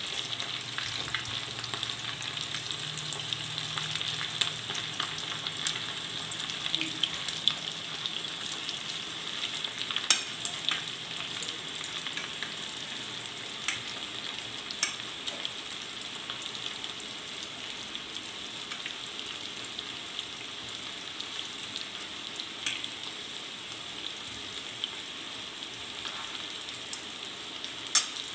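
Breadcrumb-coated chicken pieces deep-frying in hot sunflower oil on high flame, now and then stirred with a spoon: a steady sizzling hiss full of small crackles, with a few sharper pops about ten seconds in and near the end.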